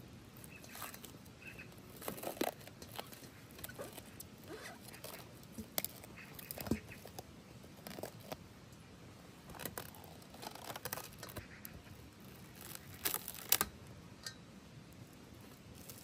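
Plastic cling film crinkling and crackling in short, irregular rustles as it is stretched and pressed over a stainless steel bowl of dough, the loudest crinkling about three quarters of the way through.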